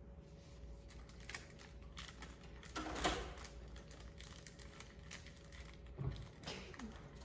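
Small plastic bag crinkling and rustling in short, scattered bursts as it is handled, loudest about three seconds in, with a soft bump about six seconds in.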